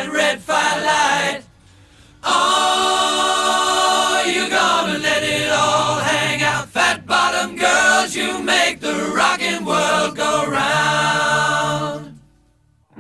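Music: a song of several voices singing together. It breaks off briefly about a second and a half in and fades out near the end.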